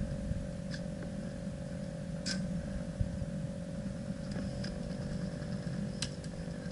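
Steady low rumble of wind and handling on a helmet-mounted camera's microphone, over a steady mid-pitched hum, with a few sharp clicks about two seconds and six seconds in.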